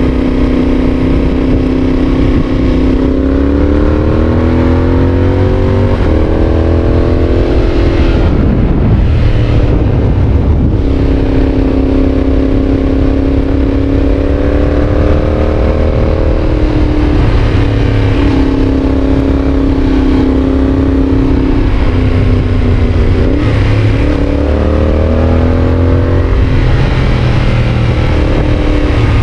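Yamaha Tracer 7's parallel-twin engine through a GPR exhaust under way, revving up as it accelerates, then dropping back, several times over, with brief breaks in the engine note at gear changes.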